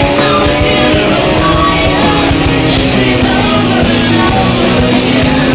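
Background rock music with guitar, playing at a steady loud level.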